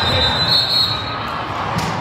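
Echoing din of a big indoor volleyball tournament hall: many voices and crowd chatter, with a high, steady referee's whistle for about a second at the start and a single sharp smack near the end.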